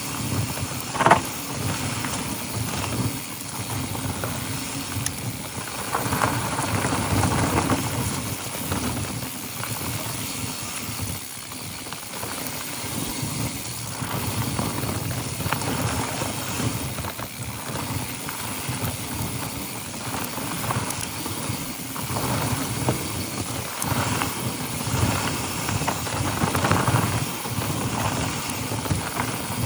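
Mountain bike descending a dry dirt singletrack: tyres rolling over dirt and dry leaves and the bike rattling over bumps, with a steady rush of noise and frequent small knocks, and one short, sharp louder sound about a second in.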